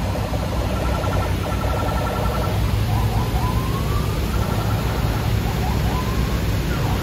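Heavy truck's diesel engine labouring uphill under a very heavy load, a steady low rumble. Over it come high trilling tones in the first two seconds, then sliding high tones.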